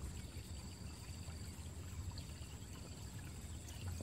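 Quiet ditch-side ambience: faint trickling water in a small rice-field irrigation ditch over a low steady rumble, with thin steady high-pitched tones above it.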